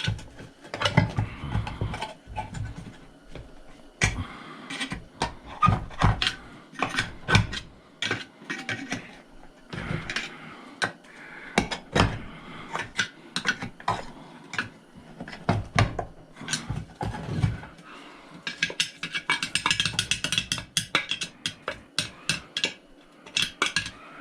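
Metal parts and hand tools clanking, tapping and scraping as a chop saw is worked apart by hand, in irregular knocks and clicks. About three-quarters of the way through comes a run of quick rattling scrapes.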